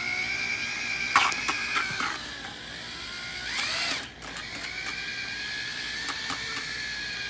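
Corded drill with a paddle mixer running at low speed in a plastic bucket of thinset mortar: a steady motor whine, with some knocks and scraping about a second in. Near four seconds the pitch rises, the drill cuts out briefly, then runs on steadily.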